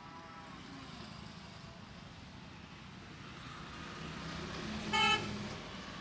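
A vehicle passing on the road, its engine growing louder, then one short horn toot about five seconds in.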